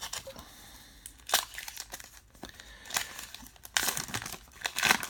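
A baseball card pack's wrapper crinkling and tearing as it is opened by hand, in short rustling spurts, the loudest near the end.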